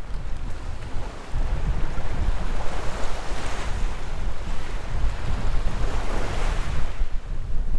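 Strong wind buffeting the microphone over water rushing and splashing along a sailboat's hull as it sails fast through whitecapped seas in about 20 knots of wind. The wash swells up about three seconds in and again around six seconds in.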